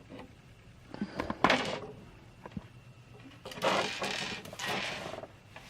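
Plastic blind bag being handled and torn open: two spells of crinkling and rustling with a few small clicks.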